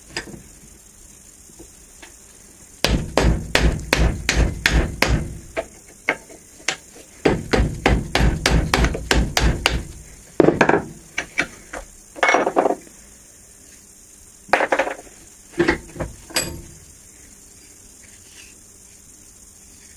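Hammer blows, two quick runs of about four strikes a second followed by a few single strikes, knocking the old wooden handle stub out of the eye of a small hatchet head.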